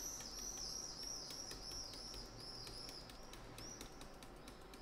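Faint, high-pitched chirping repeated about three times a second, with soft ticks between the chirps.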